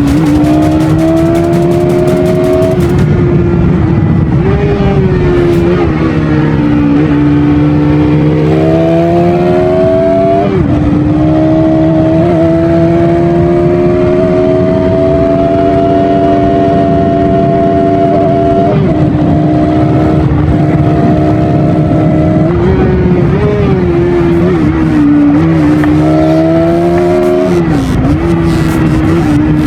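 Bajaj Pulsar NS200's single-cylinder engine running through its stock exhaust, a steady note that rises and falls gently with the throttle and dips briefly a few times.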